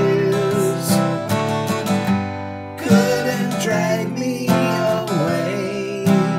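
Steel-string acoustic guitar strumming chords, with a fresh strum every second or two and the chords left ringing between strums.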